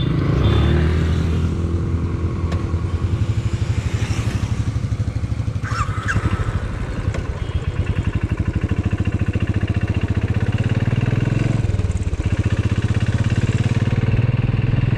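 Motorcycle engine running while riding, with a steady low pulse. The engine note drops and then climbs again about twelve seconds in.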